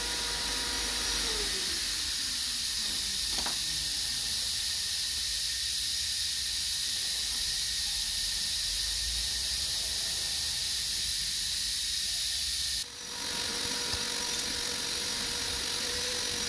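Steady hiss of workshop background noise. A faint hum glides down and fades out about a second in, then comes back near the end. There is a single faint click a few seconds in.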